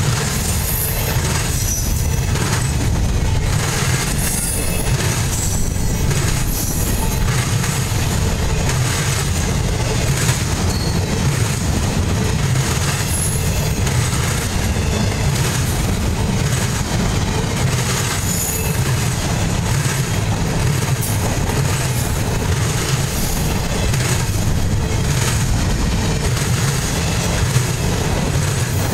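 Empty double-stack intermodal well cars rolling past close by: a steady rumble and clatter of steel wheels on the rails, with short high-pitched squeals now and then.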